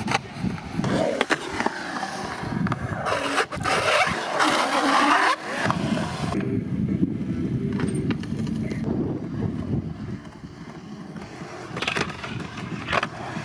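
Skateboard wheels rolling on concrete, with a loud scrape of the board grinding along the coping from about three to six seconds in and a few sharp clacks of the board.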